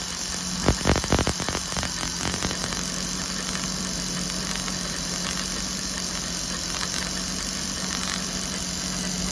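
MerCruiser 4.3 L V6 boat engine running steadily with a constant hum, a few sharp clicks in the first two seconds. It is running on the new Delco EST ignition with a spark tester in one plug lead set to a wide gap just past E, the spark firing across that gap.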